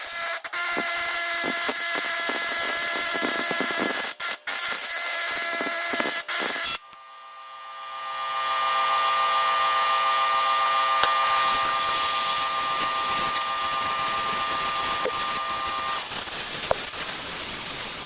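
A power tool's motor running steadily at a high pitch. It cuts out about seven seconds in, spins back up over a second or so, runs steadily again, and stops shortly before the end.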